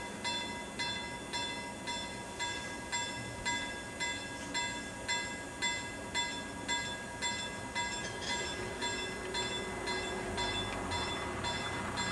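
Level crossing warning bell ringing at an even pace, a little under two strokes a second. From about eight seconds in, the rumble of an approaching Sr1 electric locomotive with freight wagons rises beneath it.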